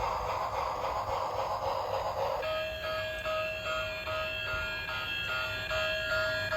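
Battery-operated toy train's electronic sound chip playing a chugging train sound effect, switching about two and a half seconds in to a short beeping electronic tune.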